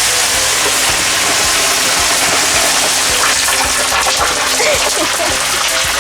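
Fish frying in hot oil: a steady, loud sizzle.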